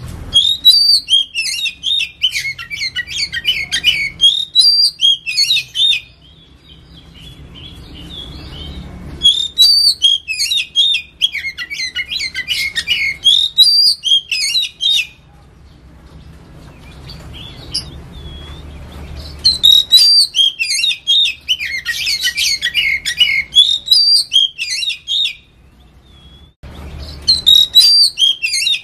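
Oriental magpie-robin singing: four long phrases of rapid, varied, high chirps and whistles, each lasting about five to six seconds, separated by short pauses.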